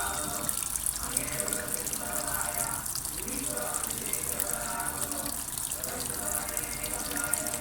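Tap water running steadily into a washing machine drum, filling it with water for the wash.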